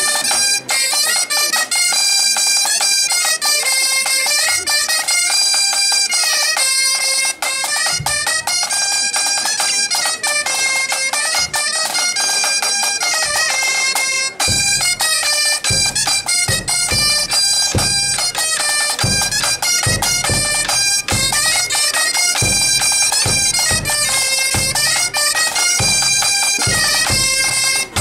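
Breton bagad (pipe band) playing a tune on bombardes and bagpipes. The snare drums come in about halfway through.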